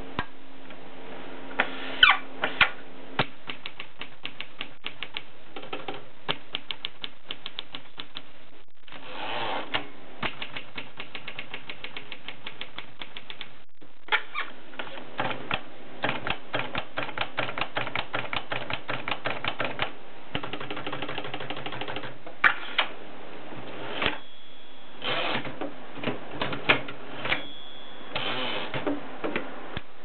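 Continental portable typewriter being typed on: rapid runs of sharp key strikes, several a second, with short pauses. Near the end the line-end bell rings twice, and the carriage is swept back with a brief rasp.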